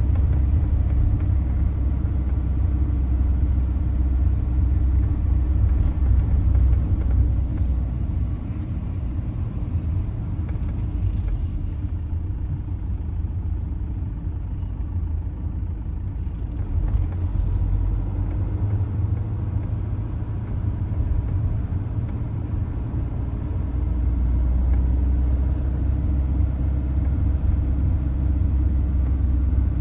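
Low, steady vehicle rumble, stronger in the first several seconds and again over the last few, with a quieter stretch in the middle.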